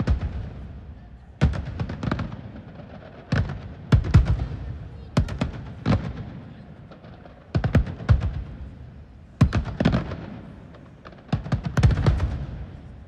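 Aerial fireworks shells bursting, a sharp bang every second or two, often two in quick succession, each followed by a rumbling echo that dies away.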